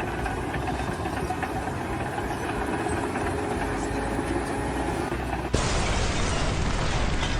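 Steady low rumble of a running engine or machinery. About five and a half seconds in, it switches abruptly to a louder, hissier noise.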